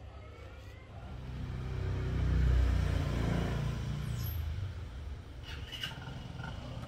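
A motor vehicle passing: a low engine rumble that swells over about a second and a half, then fades away over the next two or three seconds.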